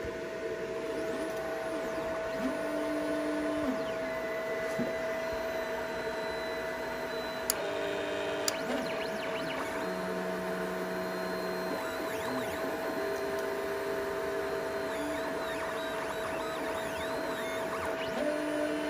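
Stepper motors of a LowRider 3 CNC driving the plasma torch head along its path in a dry test cycle, with the torch not firing. The whine changes pitch every second or two as the moves change speed and direction, over a steady hum.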